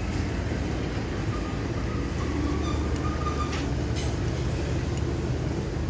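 A steady low engine rumble, unchanging throughout, with a few faint clicks about three and a half to four seconds in.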